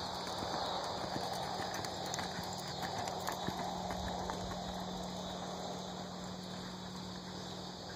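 Hoofbeats of a two-year-old filly loping on a soft dirt arena, dull irregular thuds over a steady background hiss, thickest in the first half and easing as the horse moves away.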